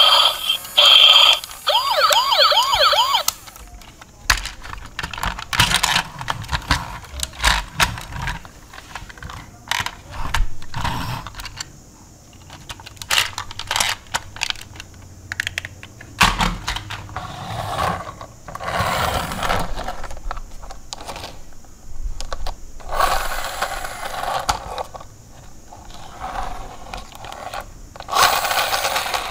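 Hard plastic toy cars being handled: many short clicks and knocks of plastic parts, with several bursts of scraping. For the first three seconds or so, a warbling electronic tone plays from a toy.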